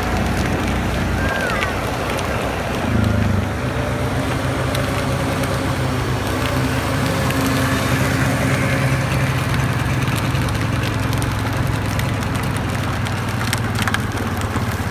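Small ride-on vehicles running on an asphalt driveway: a steady low motor hum that steps up about three seconds in and then holds, with the crunch of tyres on grit.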